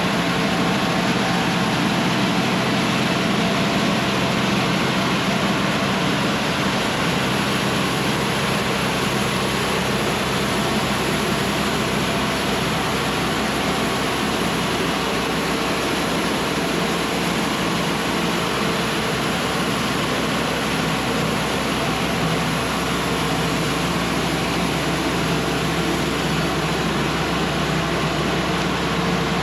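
Cooks AC-36 band sawmill's diesel engine running steadily at an even level.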